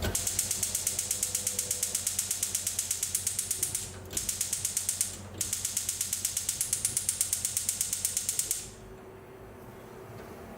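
Rapid, even mechanical clicking like a ratchet, about five or six clicks a second, breaking off twice briefly and stopping near the end, where a low steady hiss remains.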